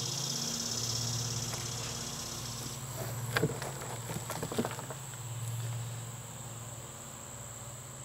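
Hands rummaging through loose soil dumped into a plastic wheelbarrow, with two short rustles about three and a half and four and a half seconds in. Behind it, insects buzz steadily at a high pitch, and a low hum swells and fades twice.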